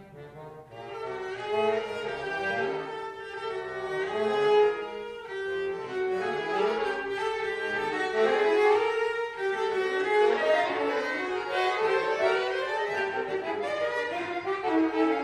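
Cello and accordion playing together: the bowed cello carries sustained melody notes over the accordion. The music starts quietly and comes in fully about a second in.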